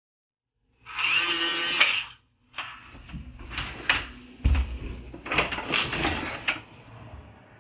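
A small electric motor whirs steadily for about a second, then stops, followed by a run of sharp clicks and knocks.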